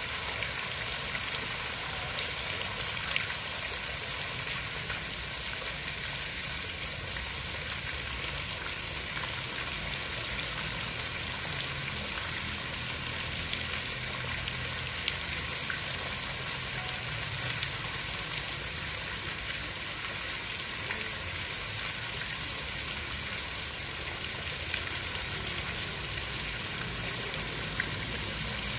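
Steady water noise: an even hiss with scattered faint ticks and a low rumble underneath, unchanging throughout.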